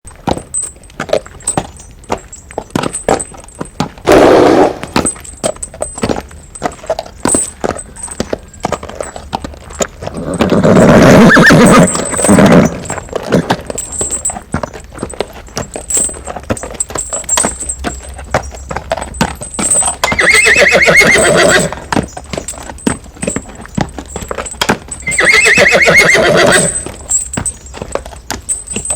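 A horse's hooves clip-clopping at a walk throughout, with the horse neighing four times: about four seconds in, around eleven seconds, around twenty seconds and around twenty-five seconds.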